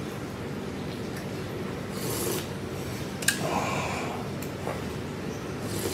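Eating from a soup bowl held at the mouth: slurping beef stew broth and chewing, with a sharp click of chopsticks against the porcelain bowl about three seconds in. A steady low hum runs underneath.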